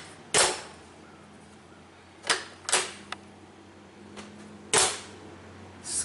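RV entry door being pushed shut and opened again, its lock latch catching against the striker with sharp bangs, four in all plus a lighter click. The door latch has been filed down so that it closes against a thick rubber seal, and this is the test of whether it now latches without slamming.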